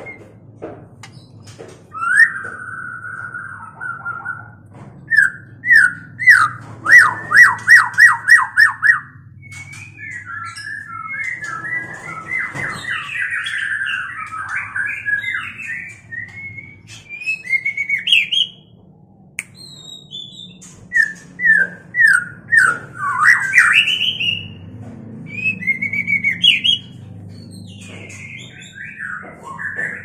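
White-rumped shamas of a pair in breeding condition singing and calling loudly: a long whistled note, then a run of rapid repeated notes at about four a second, chattering warbles, and more short rising whistles later on.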